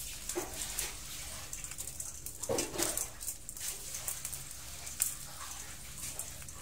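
Dozens of hermit crabs crawling over one another in a basin, their shells clicking, tapping and scraping against each other and the basin's sides in an irregular patter of small clicks, with a brief louder rustle about two and a half seconds in.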